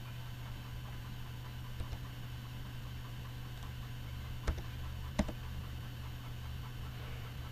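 Computer mouse and keyboard clicks over a steady low hum and hiss: two faint clicks about two seconds in, then two sharper clicks about half a second apart a little past the middle.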